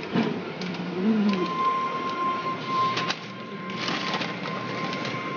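Automatic car wash machinery running: a steady mechanical noise with a steady high whine that sets in a little over a second in, and several knocks. A brief low tone rises and falls about a second in.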